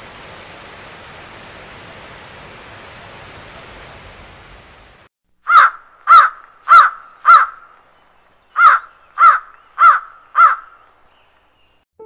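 Waterfall rushing for about five seconds, then a crow cawing: two runs of four loud caws.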